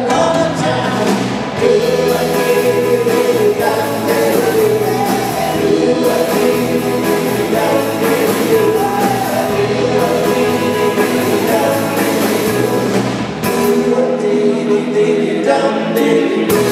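Live rock band playing a song: electric guitars, drum kit and sung vocals.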